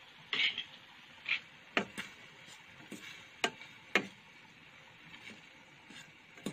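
Metal spoon clinking and scraping against a stainless steel pot while stirring ground beef and chopped onions: irregular sharp clicks, most of them in the first four seconds.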